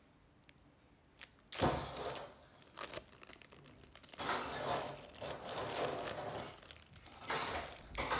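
Clear plastic wrapper of a processed cheese slice being torn and peeled off, crinkling. A sharp tear comes about one and a half seconds in, followed by irregular rustling crinkles.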